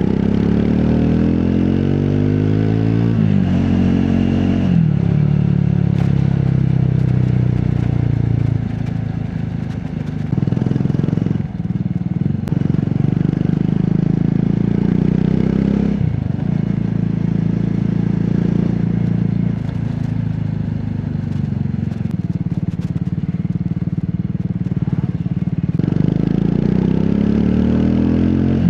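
Triumph Scrambler 400X's 398 cc single-cylinder engine and exhaust while riding, the revs climbing at the start, breaking and resetting a few times as the throttle is opened and closed, easing off briefly about a third of the way through, and climbing again near the end.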